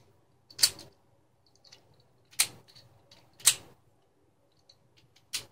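Sharp plastic clicks and clacks from small parts of an animatronic eye mechanism being handled and taken apart: four loud clicks spread over a few seconds, with fainter ticks between them.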